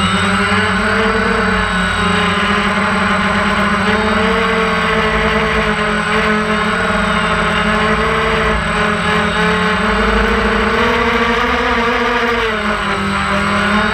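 DJI Phantom 1 quadcopter's motors and propellers humming steadily in flight, heard close from the camera mounted on it. Near the end the pitch dips briefly and rises again as the rotor speed changes.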